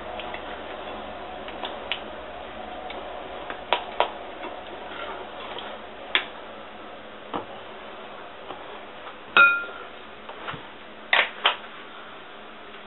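Utensil clinking and scraping against a stainless steel bowl while a melted chocolate mixture is stirred: a few scattered clicks. The loudest, about nine seconds in, is a clank with a short metallic ring, and two quick knocks follow soon after.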